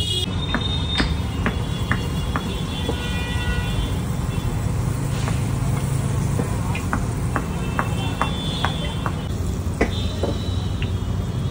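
Balls of moong dal batter frying in hot oil in a large kadhai, with scattered crackles and pops, over a steady low rumble.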